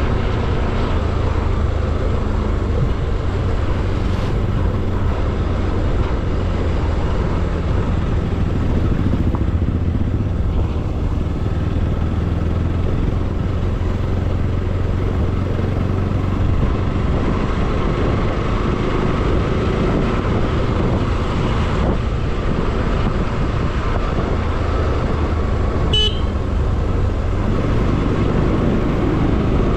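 Motorcycle engine running steadily at cruising speed, with an even low hum under road noise. A single short, high horn beep sounds near the end.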